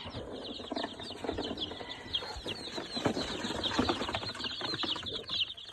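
A brooder of baby chicks peeping nonstop: many short, high, falling peeps overlapping. Under them run scattered knocks and rustling from movement in the bedding.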